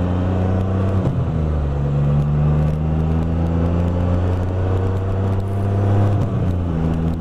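Can-Am Spyder F3's three-cylinder engine running under way, a steady engine note whose pitch dips briefly about a second in and again near the end, with wind rush over the microphone.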